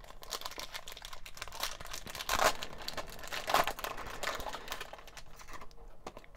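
Foil booster pack being torn open and crinkled by hand: a dense crackling rustle, with louder crackles about two and a half and three and a half seconds in, easing off near the end.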